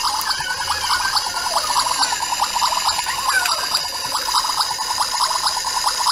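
Toy kitchen set making a steady, rapid bubbling water sound, many short pulses a second at an even level.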